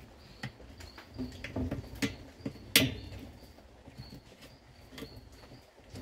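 Light clicks and knocks of plastic washing-machine agitator parts and a small metal pin being handled inside the steel drum, with one sharper click a little before the middle. Faint short high chirps recur in the background.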